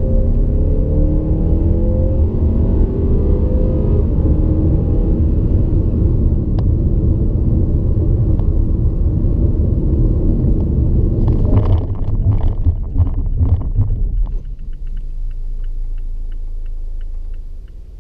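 The Mazda6 Sport's 2.5-litre four-cylinder engine is heard from inside the cabin under hard acceleration, its note rising over heavy road rumble. About twelve seconds in, the car brakes hard from around 100 km/h with a clattering burst. The engine then drops to a low idle as the car comes to a stop, with a light regular ticking.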